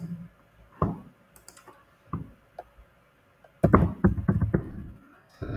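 Computer keyboard and mouse: a few separate clicks, then a quick run of keystrokes about three and a half seconds in, lasting about a second, as a search term is typed.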